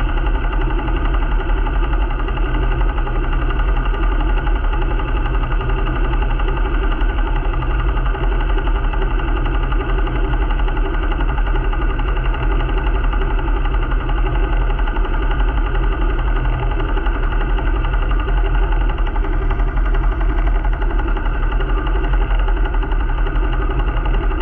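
A sailing yacht's inboard diesel engine running steadily under way, an even, unchanging drone.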